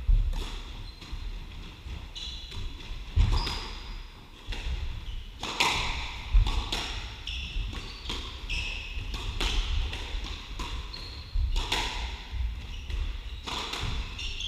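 Squash rally on a wooden court: sharp knocks of the ball off racquets and walls every second or two, with short high squeaks from court shoes on the floor between shots.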